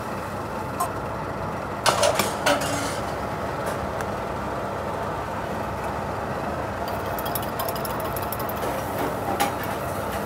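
Steady mechanical hum of kitchen ventilation, with a few light clicks and clinks of a knife and a steel bowl, most of them about two seconds in.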